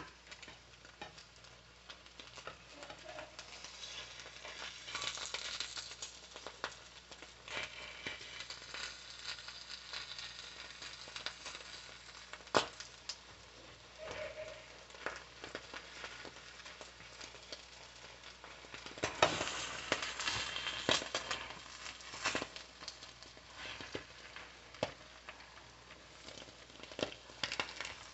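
Omelette eggs frying in a pan with a soft, steady sizzle and crackle, swelling in places. A few sharp utensil-like clicks come through, the loudest about twelve seconds in.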